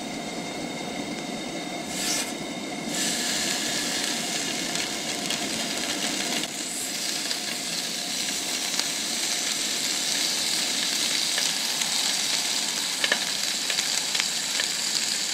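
Raw bacon slices sizzling in a hot frying pan on a Coleman camp stove; the sizzle starts about three seconds in as the first slices go into the pan and grows a little louder as more are added. A sharp click near the end.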